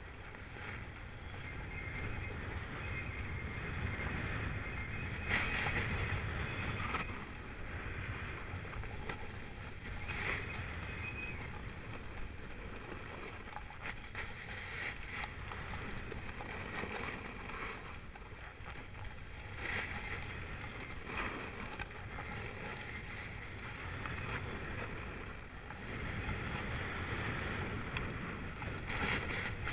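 Skis hissing and scraping over packed snow, swelling with each turn every few seconds, under a steady low rumble of wind buffeting the microphone.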